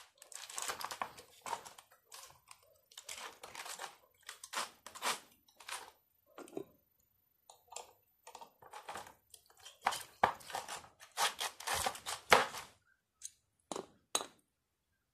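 Thin aluminium fins of an aluminium-copper radiator core crunching and tearing as copper tubes are pried and pulled out of it with pliers and fingers. Irregular scraping crunches, with a denser run of louder ones about two-thirds of the way through.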